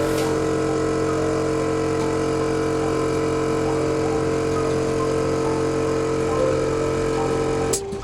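Steady hum of a running motor, holding one even pitch and then cutting off abruptly near the end.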